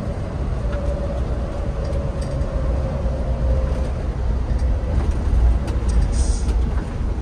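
Scania K410IB coach under way, heard from inside: a deep, steady rumble of diesel engine and road, with a faint whine that falls slightly in pitch over the first few seconds and light rattles throughout.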